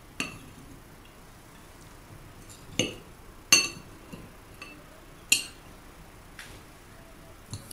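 Metal knife and fork clinking against a plate while a portion is cut on it: a few sharp clinks spread a second or two apart, the loudest about three and a half seconds in.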